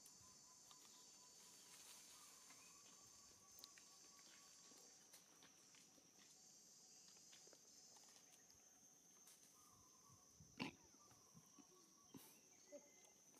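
Near silence, with a faint steady high-pitched insect buzz throughout and a few brief faint sounds, the clearest about three-quarters of the way in.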